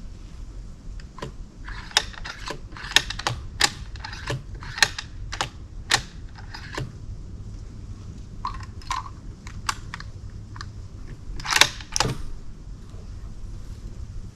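A run of irregular sharp clicks and light knocks from gear being handled at a shooting bench, with the loudest cluster about eleven and a half seconds in.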